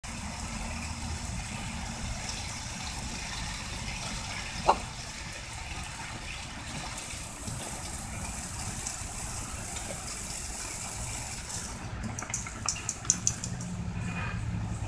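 Steady hiss of a thin jet of water spraying onto grass and pavement. One sharp click cuts through about four and a half seconds in, and a quick run of five or six clicks comes near the end.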